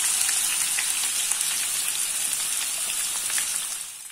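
Freshly added chopped onions sizzling in hot oil in a pan: a dense crackling hiss that fades near the end.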